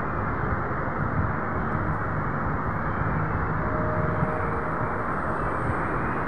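Steady cabin noise inside a Bangkok MRT Yellow Line monorail car (Alstom Innovia Monorail 300): an even rumble and hiss with a faint hum running through it.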